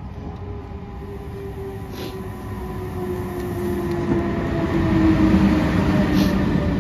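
SBB Re 460 electric locomotive and its Intercity coaches pulling into the platform and slowing. The rumble grows louder as it passes, peaking about five seconds in, with a whine that falls slowly in pitch.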